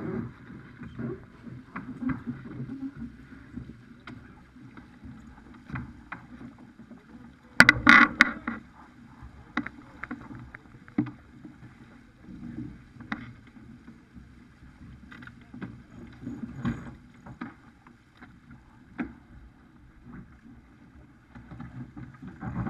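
Farr 280 sportsboat under sail: a steady rush of water and wind, with scattered clicks and knocks from the rigging and crew handling gear on deck. The loudest is a clatter about eight seconds in.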